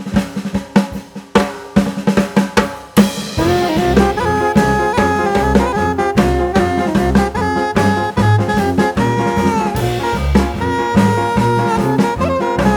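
Music: a solo drum-kit opening of snare and rimshot hits, then about three seconds in a full band comes in with a melody over a steady bass beat.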